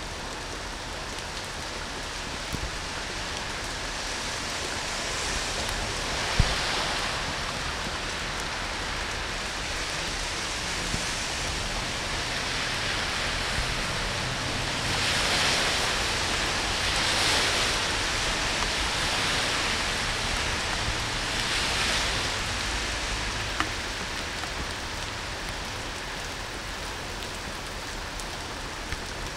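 Heavy rain pouring down on a street, a steady hiss that swells louder a few times, with one sharp knock about six seconds in.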